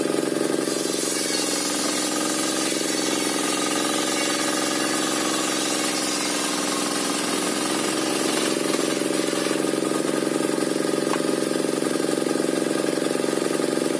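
Engine-driven circular sawmill (serkel) running steadily while waru wood is fed through the blade; the engine hum and the blade's whine hold an even pitch throughout.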